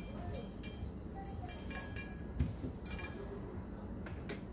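Steady low background rumble with a few faint, short ringing clinks.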